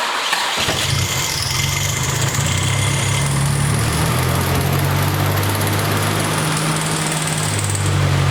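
Nissan Silvia S15's turbocharged SR20DET four-cylinder catching about half a second in and settling into a steady idle on a cold start, with a faint high whine above it. The idle note shifts near the end.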